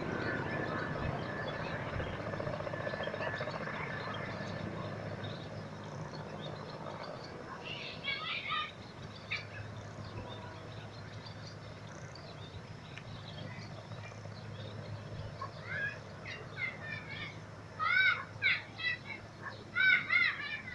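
A distant helicopter's engine and rotor hum, fading away over the first several seconds. Birds give short chirping calls a little before halfway through, then a louder run of chirps near the end.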